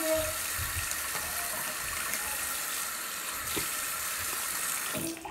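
Bathroom sink tap running steadily, water splashing into the basin, stopping abruptly near the end.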